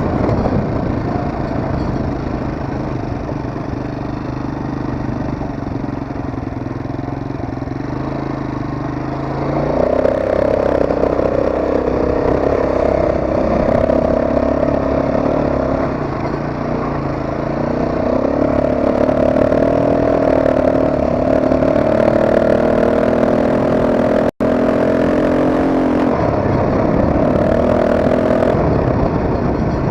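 ATV engine running under way. It revs up about ten seconds in, and its pitch rises and falls with the throttle after that.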